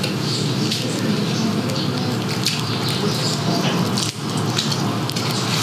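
Crisp skin of a deep-fried pork leg (crispy pata) crackling and crunching irregularly as it is torn apart by hand, over a steady background noise.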